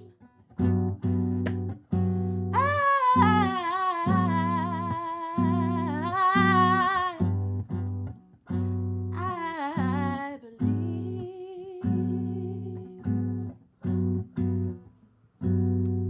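Music: plucked guitar chords in short repeated strokes under a wordless sung melody with vibrato, which comes in two phrases, about two seconds in and again near the middle.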